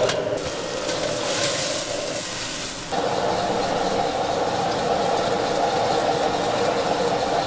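Food frying with a steady sizzle and hiss; a steady hum joins about three seconds in.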